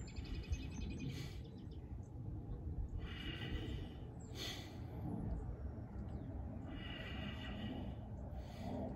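A man breathing slowly and audibly while holding a stretch, several breaths a few seconds apart, over a steady low background noise.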